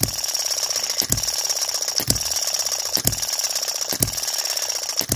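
Microcosm M96 2cc hit-and-miss model engine running, firing with a sharp report about once a second and coasting with a rapid mechanical ticking between firings. Under it is a light knock that the owner puts down to the small end of the connecting rod.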